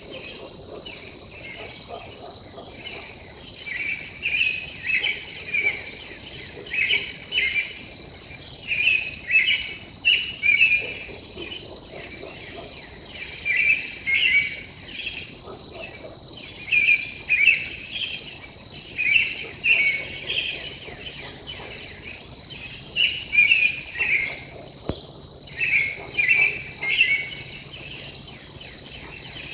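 An unidentified songbird singing in the dark, short quick phrases one after another with brief gaps, over a steady high-pitched insect chorus that is the louder sound throughout.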